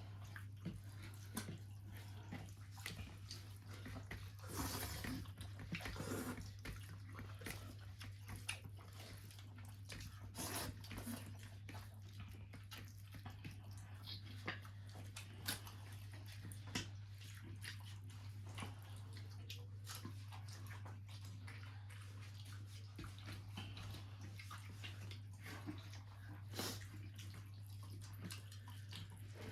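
Faint eating sounds: scattered small clicks of food and fingers on plates and soft wet squishing as rice and curry are mixed and fish is picked apart, over a steady low hum.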